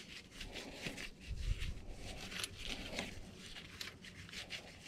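Faint handling noises of a steel lifting chain and bolt being fitted to an excavator swing motor by gloved hands: light rubbing, scraping and scattered small clinks, with a dull bump about a second and a half in.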